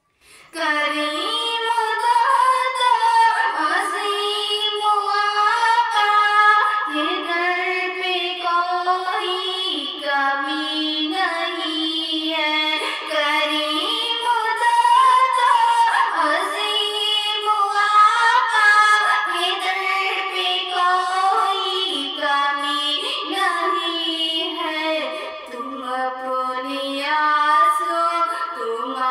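A high female voice singing a naat solo, with no instruments: a flowing melody of held, ornamented notes in long phrases.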